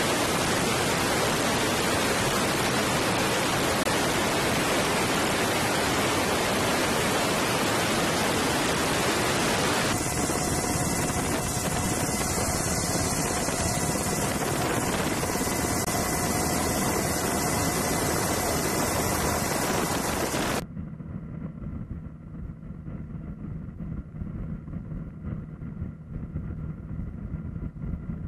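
Loud, even rushing of wind and aircraft engine noise on the microphone of an airborne camera. About ten seconds in, faint steady tones join it. About two-thirds of the way through it drops abruptly to a quieter, lower, fluctuating rumble with a faint steady hum.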